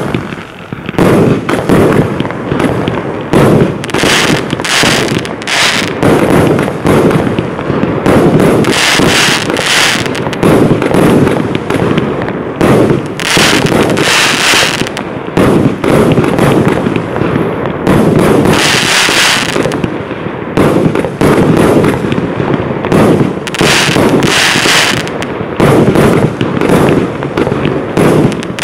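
Lesli 'Dark Water' 144-shot firework cake firing: a rapid, unbroken run of shell launches and star bursts. Several stretches of brighter hissing come through along the way.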